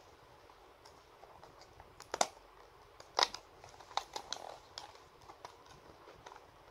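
A toy surprise can being opened by hand: sharp clicks and crackles of its lid and packaging, with crinkling, the loudest snaps about two and three seconds in.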